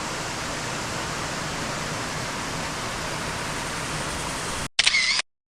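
Steady, even rush of falling water from Xuejian Waterfall. It cuts off suddenly near the end, followed by a brief, loud, high-pitched wavering sound about half a second long, then dead silence.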